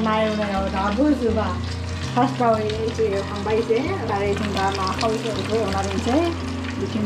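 Fish frying in hot oil in a pan, sizzling and crackling steadily, with a wavering pitched melody running over it.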